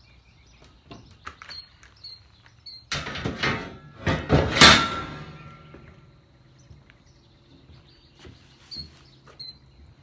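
Long metal sawmill part being set down: about two seconds of clattering knocks ending in a loud clank that rings on briefly. Birds chirp faintly around it.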